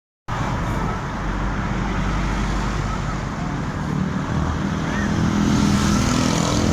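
Roadside traffic noise with a bus engine rumbling, growing louder about five seconds in as it draws closer. No horn tune sounds.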